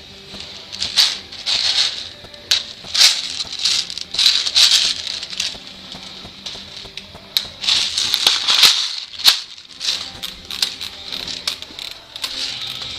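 Airsoft rifles firing indoors, with many short bursts and single sharp shots scattered irregularly, the busiest stretch about eight seconds in.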